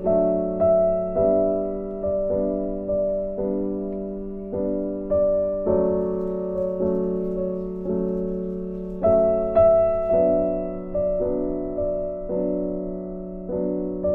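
Background piano music: soft notes struck about every half second, each fading away before the next.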